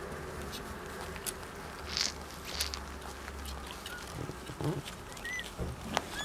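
Light patter and rustling of a kitten's paws scrabbling on a quilted pad as it plays with a toy ball, with scattered soft taps and two brief rustles about two seconds in. A faint short high squeak about five seconds in.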